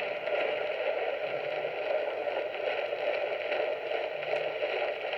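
Steady hiss and crackle of radio static from a broadcast radio receiver, with no programme audio coming through.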